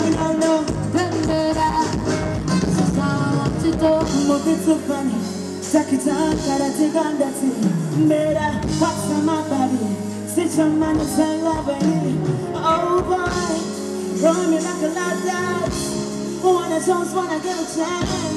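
Live band playing an upbeat song with a woman singing lead into a microphone, over electric bass guitar, keyboards and drums.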